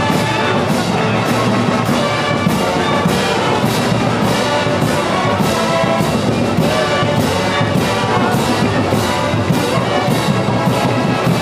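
Brass band playing a slow parade march for a Moros i Cristians entrada, trumpets and trombones over drums and cymbals keeping a steady beat about twice a second.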